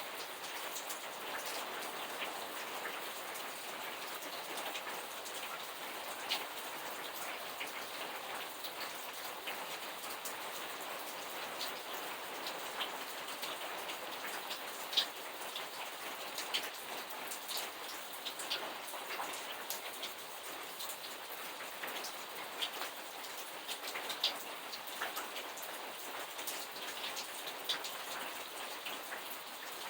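Steady rainfall, an even hiss with many separate drops ticking sharply on a hard surface throughout.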